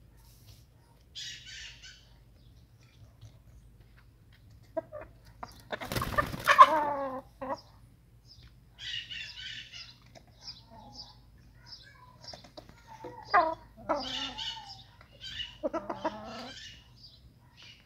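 Chickens clucking and calling, with one loud, harsh squawk about six seconds in and several shorter calls later on.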